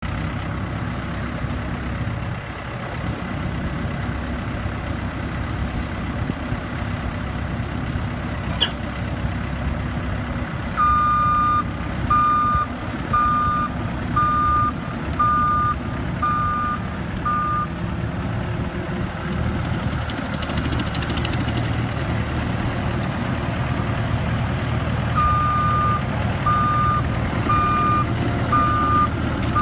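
Terex skid steer's engine running steadily, with its backup alarm beeping about once a second in two runs, the sign that the machine is reversing: seven beeps near the middle and several more near the end.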